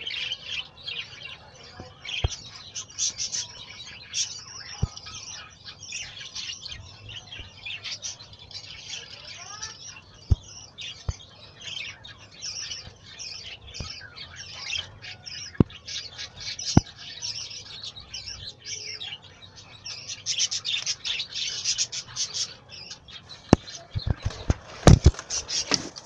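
Parrot chicks chirping continuously in quick, high-pitched begging calls, with a few sharp clicks scattered through and a cluster of louder knocks near the end.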